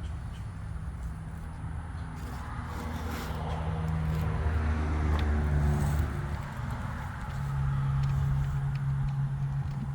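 A motor vehicle's engine running, its pitch stepping and gliding up and down, loudest about four to six seconds in and again near eight seconds.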